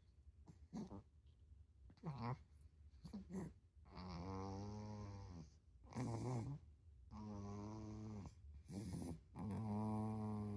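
Snoring from a sleeper, really loud: a few short snorts and breaths at first, then three long drawn-out pitched snores, each lasting about a second and a half, coming about every two and a half seconds.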